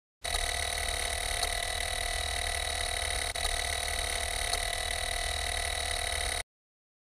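Car starter solenoid chattering in very rapid clicks that run together into a steady buzz while the key is held in the start position: the sign of a dead battery. It stops abruptly near the end, with a brief break about halfway.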